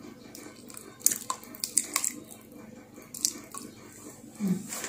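Cooking oil being poured into a pot of chicken pieces in water and spices, with a few sharp clinks of kitchenware.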